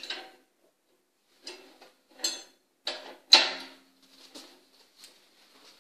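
Metal hooks of bungee exercise cords clicking and knocking against the steel rod and frame of a ski-simulator trainer as the cords are hooked on. The loudest knock comes about three and a half seconds in and rings briefly.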